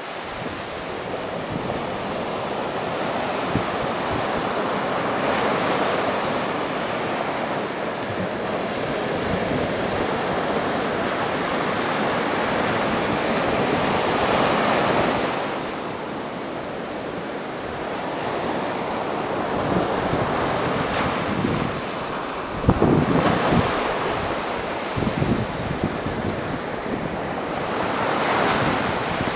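Atlantic Ocean surf washing in and out in slow swells, with wind rumbling on the microphone in gusts, strongest about two-thirds of the way in.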